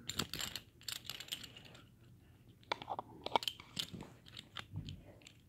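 Irregular soft clicks and crackles of handling close to the microphone, in two loose clusters, the first right at the start and the second about three seconds in.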